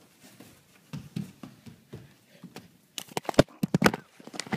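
Soft taps and scuffs as a toddler moves inside a cardboard box on a wooden floor, then a quick burst of sharp knocks and clatter about three seconds in.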